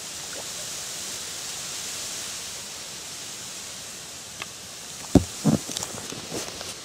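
A steady hiss of wind over open water, then about five seconds in two loud thumps half a second apart as a small crucian carp is swung onto an inflatable rubber boat's tube and flaps, followed by lighter knocks and rustling.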